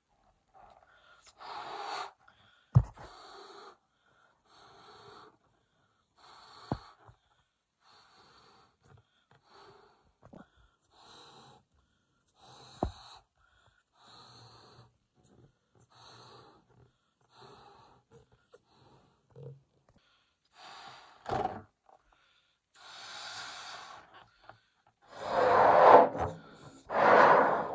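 Latex balloons being blown up by mouth: repeated short puffs of breath, about one a second, with four sharp clicks along the way and louder, longer blows near the end.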